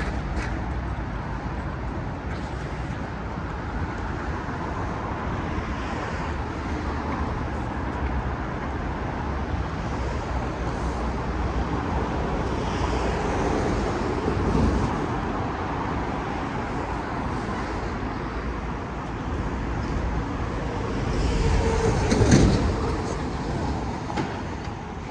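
Steady city road traffic noise. Vehicles pass closer and louder twice, about halfway through and again near the end, the second pass the loudest.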